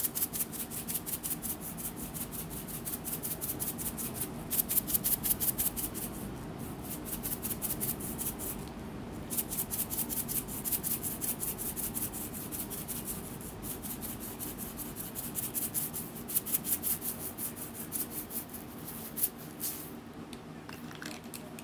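Sprinkles rattling in a handheld container shaken rapidly over a pan, about six shakes a second, in runs with brief pauses. The shaking stops shortly before the end, just after one sharper click.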